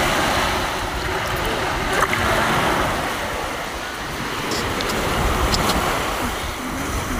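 Small sea waves breaking and washing up a sandy shore, the surf swelling and fading every couple of seconds, with wind buffeting the microphone. A light knock about two seconds in.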